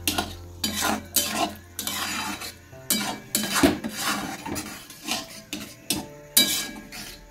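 Metal spatula scraping and clinking against a metal kadai as boiled peas in a thick spiced gravy are stirred and cooked down, in about a dozen irregular strokes.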